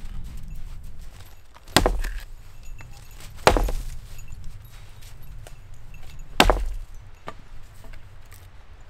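A hatchet splitting firewood on a log: three sharp chops.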